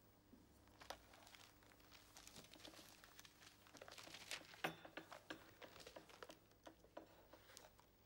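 Newspaper pages rustling and crinkling faintly as they are handled and folded, a run of soft crackles with one sharper crackle about halfway through, over a faint steady hum.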